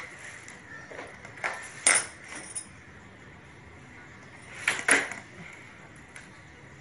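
Light, sharp clicks and clacks of hard PVC folding-door panels and a metal square being handled and set against each other while the panels are marked, several scattered taps with a louder pair about five seconds in.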